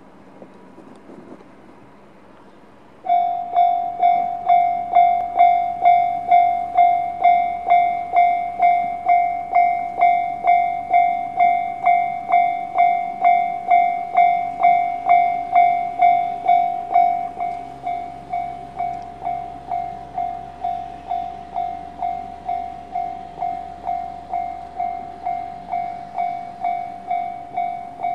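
A bell-like ding repeating steadily about twice a second, starting about three seconds in and getting quieter about two-thirds of the way through.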